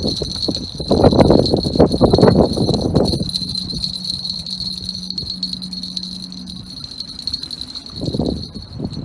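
Wind buffeting the microphone in gusts, loudest about one to three seconds in and again near the end, over a steady high-pitched ringing tone.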